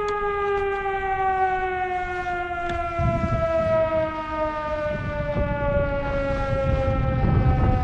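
A long, siren-like tone with overtones, slowly falling in pitch, with a low rumble joining about three seconds in.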